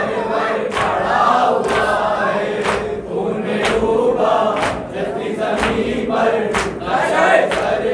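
A group of men chanting a noha refrain together, with hand-on-chest beating (matam) landing about once a second.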